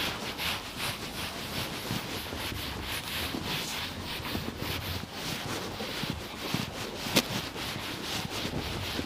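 Whiteboard eraser wiping a whiteboard in quick, repeated rubbing strokes, with one sharp tap about seven seconds in.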